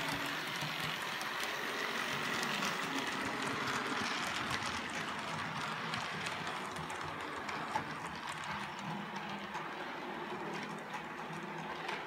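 OO-gauge model train, a Bachmann Class 24 diesel locomotive hauling Hornby Mk1 coaches, running along the track: a steady whirring, rolling noise with faint clicks from the wheels, growing a little quieter near the end as it moves away.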